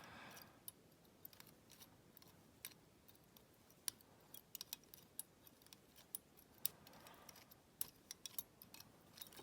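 Faint, irregular small clicks and scrapes of a pick working the levers inside a WEP 5-lever padlock, coming more often in the second half.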